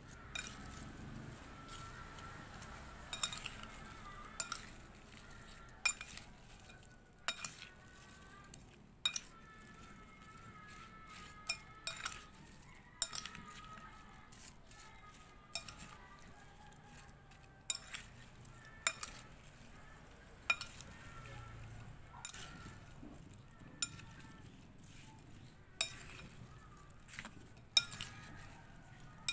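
Metal spoon clinking against a ceramic bowl while tossing cubed cucumber and apple, a sharp clink every second or two at an uneven pace.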